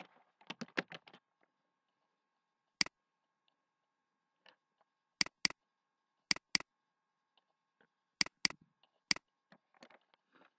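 Computer mouse clicking: a quick run of about five clicks at the start, then single clicks and quick pairs a few seconds apart, over a faint steady hum.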